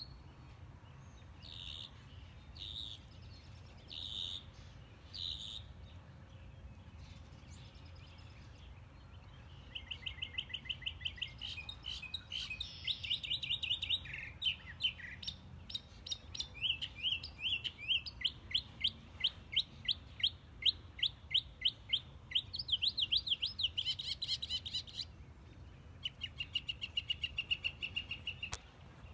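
Small songbirds singing: a few separate chirps, then long runs of fast repeated high notes and trills, ending with a short steady trill.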